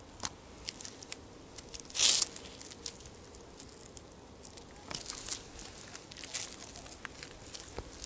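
Footsteps of Jeffrey Campbell Shadow Stud heel-less platform shoes on concrete paving stones: irregular soft taps and scuffs of the soles, with one louder scrape about two seconds in.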